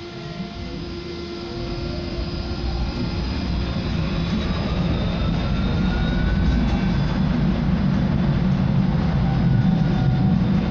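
Vario LF2 plus low-floor tram accelerating away, heard from inside the passenger car: the electric traction motor whine rises steadily in pitch over about seven seconds, while the low rumble of the wheels on the rails grows louder.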